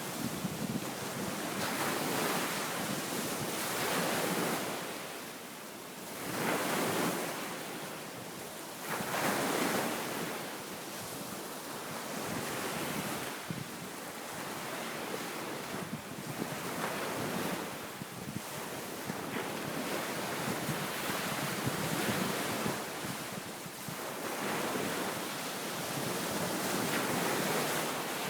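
Wind-driven waves washing onto a sandy beach, surging and falling back every few seconds, with steady wind over the microphone. The waves are stirred up by an east wind ahead of an approaching typhoon.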